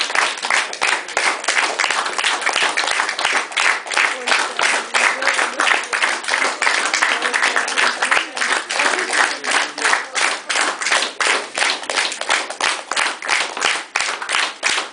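Audience applause that settles, about halfway through, into rhythmic clapping in unison at about three claps a second.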